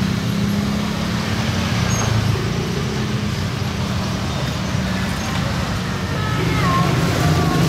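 Steady street traffic noise: motor vehicle engines running with a constant low hum, with faint voices near the end.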